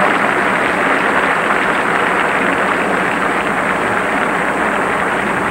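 Large stadium crowd applauding steadily, easing off slightly toward the end.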